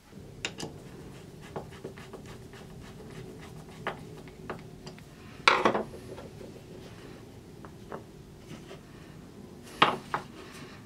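Steel bolts, nuts and hardwood blocks handled on a workbench: light clicks and taps throughout, with two louder clattering knocks, about five and a half seconds in and near the end. A faint steady hum runs beneath.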